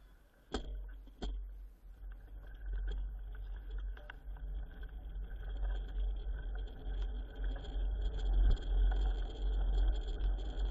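Wind buffeting the microphone and tyre noise of a mountain bike rolling down a paved road, growing louder as it picks up speed. Two sharp knocks come about half a second and a second in.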